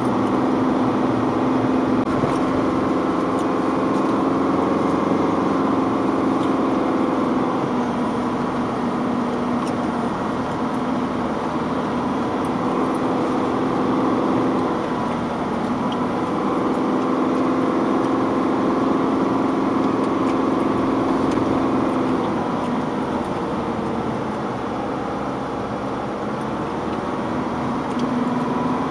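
Car engine running steadily, heard from inside the cabin, its note dipping and rising again a few times as the throttle is eased and reapplied. Faint scattered ticks and rattles sit over it.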